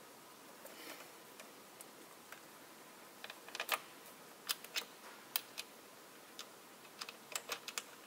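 Faint, scattered sharp clicks and ticks of hands working the nuts and ring-terminal connectors on the scrubber's battery terminals. The clicks come irregularly, mostly from about three seconds in, with small clusters near the middle and near the end.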